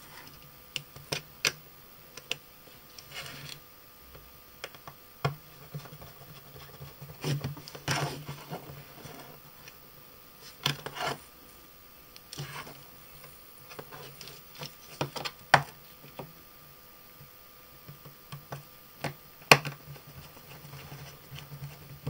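Scattered small clicks, taps and light rustles from hands handling the opened mobile phone's frame, keypad plate and thin wires on a hard bench, irregular and spread through the whole stretch.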